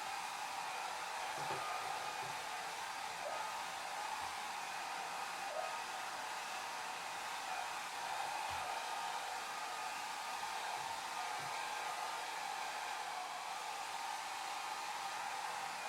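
Hair dryer running steadily: an even blowing hiss, heaviest in the upper range, with no change in level.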